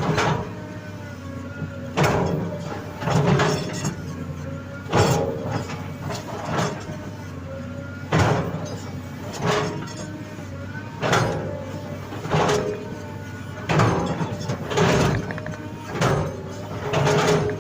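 Excavator's diesel engine running under load, its hydraulics straining in repeated surges about every one to two seconds as the boom and bucket work, with knocks and scraping of the bucket in soil.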